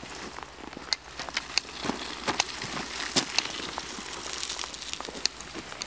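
Cut brushwood dragged over gravel and dry grass: twigs crackling and scraping, with scattered sharp cracks.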